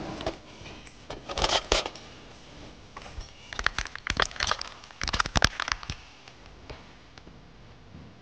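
Metal ice cream scoop clicking and scraping against a glass bowl and plate as vanilla ice cream is served. The clicks come in three quick spells: one about a second and a half in, then two busier ones past the middle.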